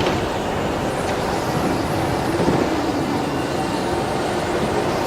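A steady mechanical rumble with no clear beats or strikes, even in level throughout.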